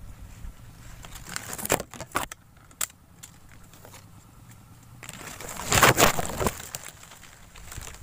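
Leaves and twigs rustling and crackling as a hand-held phone is moved through the branches of a tree, with handling noise on the microphone. There are a few sharp snaps about two seconds in and a longer, louder rustle around six seconds in.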